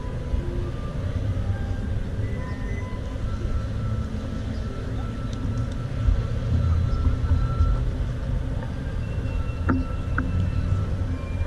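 City street ambience: a steady low rumble of traffic, with scattered short high tones and a couple of clicks near the end.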